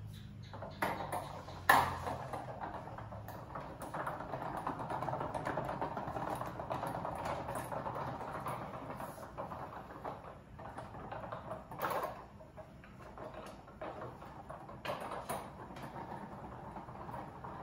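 Rustling and light clicking from hands handling material, with a sharp knock about two seconds in and another near the twelve-second mark.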